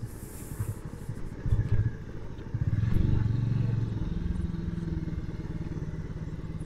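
Motorcycle engine running on the move, with a few low knocks and rattles in the first two seconds; about three seconds in the engine note picks up and then holds steady.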